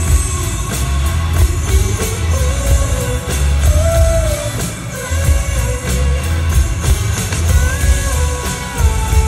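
Male singer performing live with a rock band: a heavy, pulsing bass beat with a sung melody over it.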